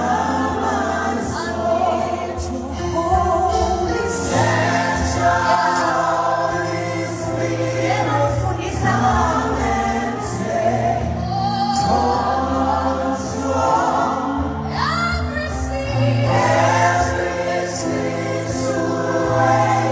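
Live gospel worship song: a woman sings lead with choir voices behind her, over a band with bass and drums.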